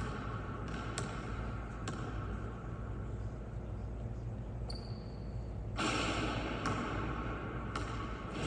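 A few faint, sharp basketball bounces on an indoor court floor, over a steady low hum of room noise.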